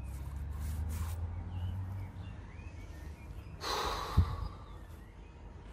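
A low rumble, then a short, sharp breath out through the nose about three and a half seconds in, followed by a single click.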